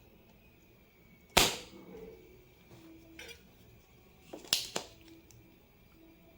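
Spring-loaded desoldering pump (solder sucker) firing with one loud, sharp snap as its plunger releases to suck molten solder from a keyboard switch joint, followed about three seconds later by two more quick clicks close together.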